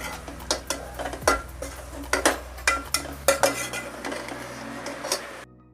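A cooking utensil clinking and scraping against a pan in irregular knocks, a few each second, as fried eggs are stirred into vegetables and cut into pieces. The knocking stops shortly before the end.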